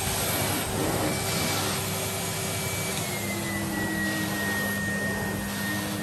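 Numatic Henry HVR200A cylinder vacuum cleaner running steadily while its floor tool is pushed over carpet; the motor's whine drops slightly in pitch about halfway through.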